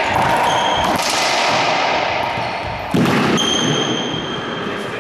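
Racquetball rally in an enclosed court: the hard ball cracks off racquets and walls three times, each hit ringing on with a long echo. Sneakers squeak on the hardwood floor between hits.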